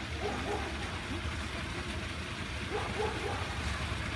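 A steady low rumble throughout, with a few soft, short calls from the waterfowl, about half a second in and again around three seconds in.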